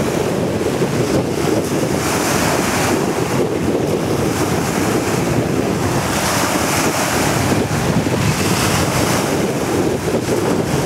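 Small waves breaking and washing on a shingle beach, with wind buffeting the microphone.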